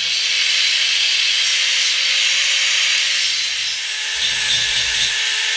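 Electric angle grinder grinding down plug welds on a car's steel body panel: a steady whine over a loud hissing rasp. About four seconds in, a small belt file sanding the weld edges takes over, with a lower, uneven rumble under the hiss.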